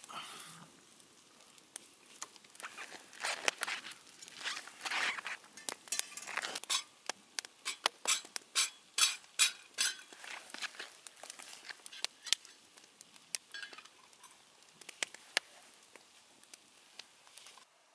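Wood campfire crackling and popping as the burning logs are poked and stirred with a stick, with rustling scrapes of shifting wood. A quick run of sharp pops comes in the middle, the loudest of them.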